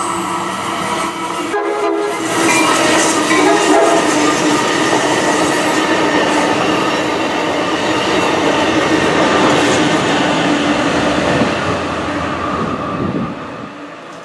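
Amtrak Pacific Surfliner passenger train passing close by: a diesel locomotive and bilevel cars running over the rails. It is loudest in the middle and fades away near the end.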